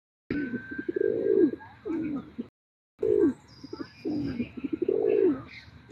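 Pigeons cooing: several short, low coos, with the audio cutting out briefly twice.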